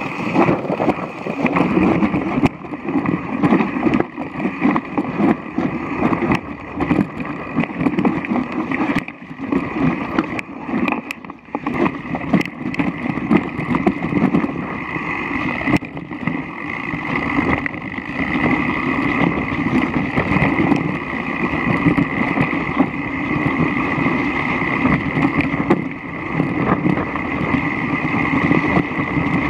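Mountain bike rolling fast over a rocky, wet trail: a steady rumble of tyres on stones and rushing air, with frequent clicks and rattles from the bike jolting over rocks.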